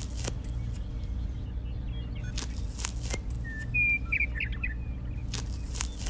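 Wooden popsicle-stick formwork being pried off small concrete pillars, giving a few sharp clicks as the sticks come away. Birds chirp briefly in the middle, the loudest sound, over a steady low hum.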